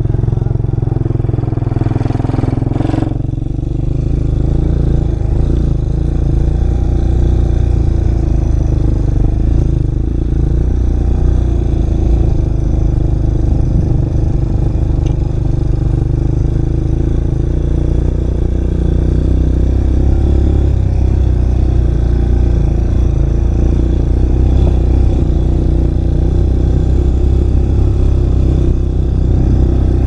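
Quad bike engine running steadily as the ATV is ridden along a rough, wet dirt trail.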